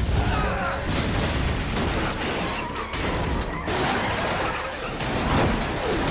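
Film explosion going off with crashing and shattering debris, followed by several seconds of dense low rumbling and scattered crashes.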